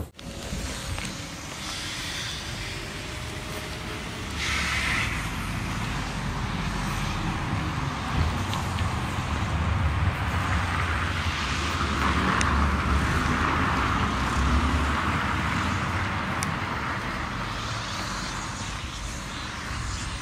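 Street noise with a car passing, growing louder over several seconds in the middle and then fading.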